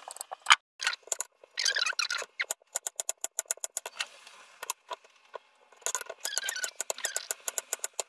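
A few scraping strokes of a vegetable peeler on the yam, then a cleaver chopping the peeled yam on a wooden cutting board in quick runs of sharp knocks, about five a second.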